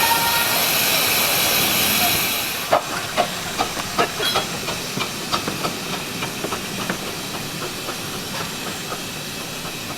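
A miniature steam locomotive hissing steam loudly; the hiss cuts off suddenly about two and a half seconds in. It is followed by a run of irregular metallic clicks and clanks.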